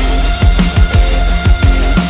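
Loud background music: an electronic track with a deep bass and a fast, busy drum beat.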